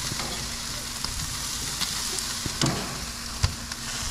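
Chicken leg quarters sizzling steadily on a hot charcoal grill grate, with a few sharp clicks and knocks as the pieces are moved to the middle of the grill, the loudest about three and a half seconds in.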